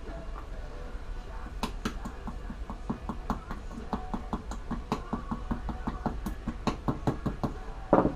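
Rapid, irregular metal taps and clicks from a hand tool working on a Honda Rincon front CV axle on the workbench, with one louder knock at the very end.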